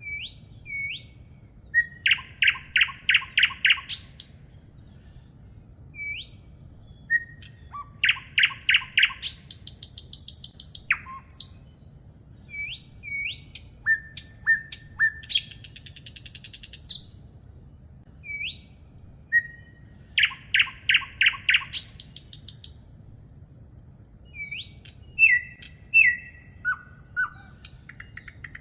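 A songbird singing, repeating the same phrase about every six seconds: a few short rising notes, then a fast trill of about eight notes a second lasting a second or two.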